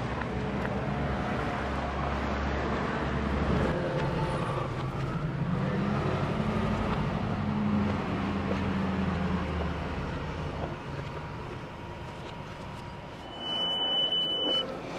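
City street traffic: a low rumble of vehicles going by, one of them rising and falling in pitch as it passes. Near the end, a short steady high beep.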